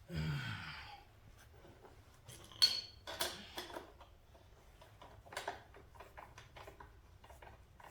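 Hand tools clicking and clinking on the metal chain adjuster and axle of a pit bike as the adjuster is turned, with scattered light clicks and one sharp metallic clank that rings briefly about two and a half seconds in.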